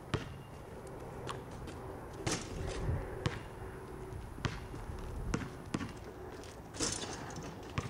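Basketball bouncing on asphalt: a string of single sharp thumps at uneven spacing, roughly one a second.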